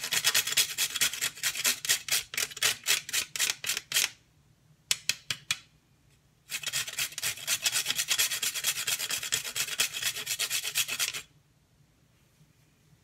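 Whole nutmeg grated on a metal box grater: quick scraping strokes, about four or five a second. The strokes pause about four seconds in, start again after six seconds and stop about eleven seconds in.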